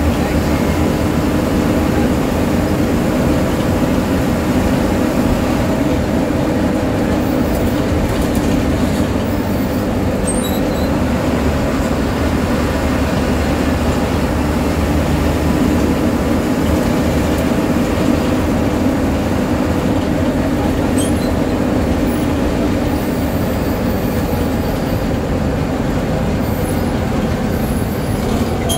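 A bus's engine and road noise heard from inside the driver's cab while the bus drives along a highway: a steady drone with no letup.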